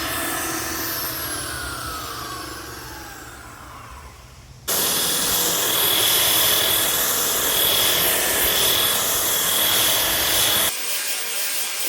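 Makita 9403 4x24 belt sander winding down, its whine falling in pitch and fading. About four and a half seconds in, the sander cuts in suddenly at full speed, sanding rough white oak: a loud steady hiss with a high whine, which stops abruptly near the end.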